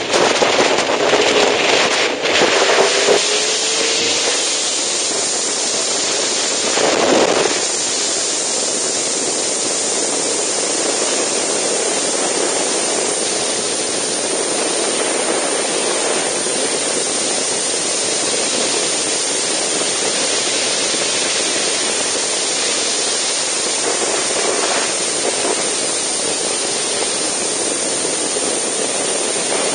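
Steady wind rush over a camera mounted on a sport motorcycle at road speed, largely covering the engine. A faint engine note comes through in the first few seconds, and the rush swells briefly about seven seconds in.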